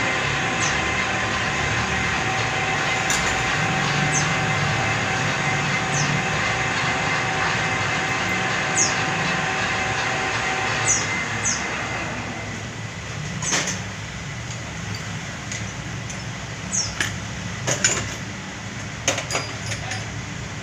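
Metal lathe running with a cutting tool facing an engine cylinder head: a steady, noisy cutting sound carrying a faint tone. About twelve seconds in it drops away, leaving quieter machine noise with scattered sharp clicks and knocks.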